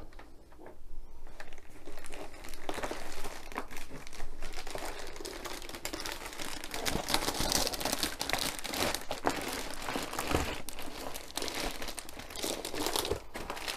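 Clear plastic air-column cushion packaging crinkling and rustling as it is handled, with dense irregular crackles starting about a second in.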